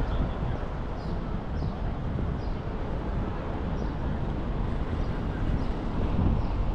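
Outdoor city street ambience: a steady low rumble, with faint short high ticks repeating about every two-thirds of a second.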